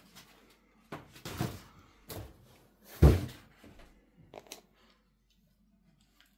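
Crumpled kraft packing paper and cardboard being handled: a series of short knocks and rustles, with one heavy thump about three seconds in.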